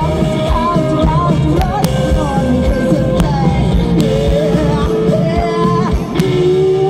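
Live band performing: a lead vocal sung into a microphone, with long held notes in the second half, over drums and full band through a PA.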